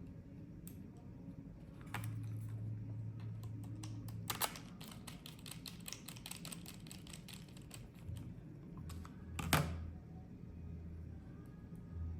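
Small Torx screws being driven back into a tracker's plastic housing: a run of light, rapid clicks and taps, with a low steady hum in stretches and one sharper tap about nine and a half seconds in.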